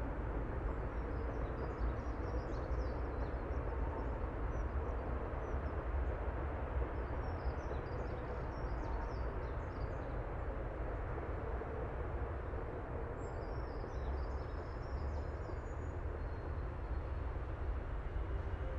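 Steady outdoor ambience: a constant low rumble of wind and distant traffic, with small birds chirping faintly in three short spells.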